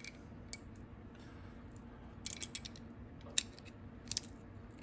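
Small metal parts of a quarter-inch ratchet being handled and fitted back together: a few light, sparse metallic clicks.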